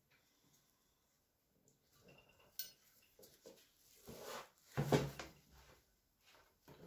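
Small metal valve-train parts from a stripped cylinder head being handled and set down: light clinks, a sharp click about two and a half seconds in and a louder clatter around five seconds in.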